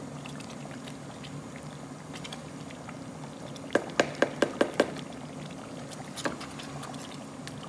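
Chicken korma simmering in a nonstick pot as it is stirred with a plastic slotted spatula. A little under four seconds in, a quick run of about six knocks as the spatula taps against the pot, and one more knock a couple of seconds later.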